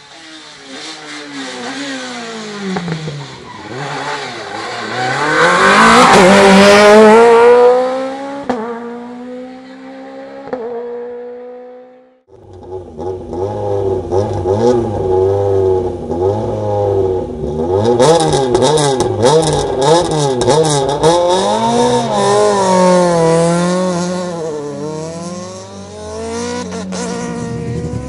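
Rally cars at full race pace: the first car slows with its engine note falling, then accelerates hard up through the gears past the microphone, loudest about six seconds in. After a sudden cut, a second rally car's engine revs up and down through quick gear changes, with a rapid string of sharp cracks in the middle.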